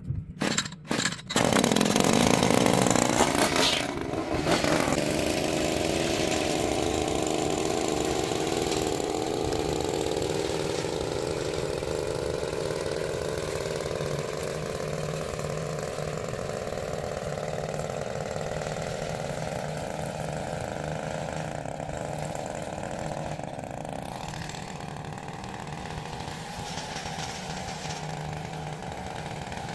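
Small petrol engine of lawn equipment starting with a few short sputters, then running loud and steady. It settles a little about four seconds in and keeps running, slowly fading.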